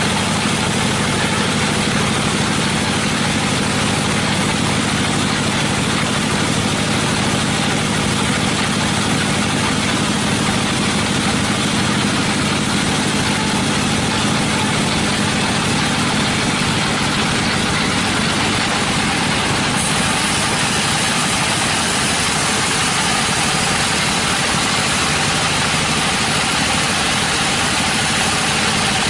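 Sawmill machinery running: a loud, steady, unbroken machine noise that stays even throughout.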